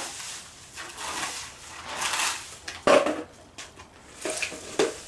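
Broom and plastic dustpan scraping over brick paving, gathering dry leaves into a toy bucket, with irregular rustling and scraping. Two sharp knocks, about three seconds and about five seconds in.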